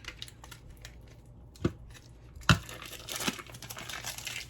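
Cream cheese wrapper crinkling and rustling as half of the block is portioned out, with a few sharp knocks in the middle, the loudest about two and a half seconds in.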